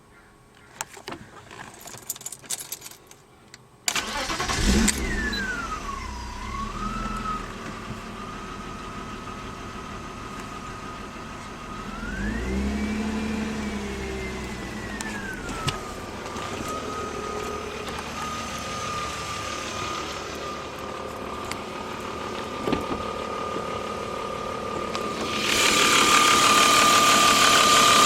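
A few clicks, then the BMW 325is inline-six starts and idles with a high-pitched whine that follows engine speed. The whine climbs and falls back during a brief rev about halfway through. The whine comes from a faulty remanufactured alternator. Near the end the engine and whine get louder, with added hiss.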